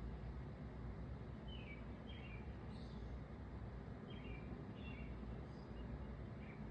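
A small bird chirping: a series of short, high chirps, each dropping slightly in pitch, over a steady low outdoor rumble.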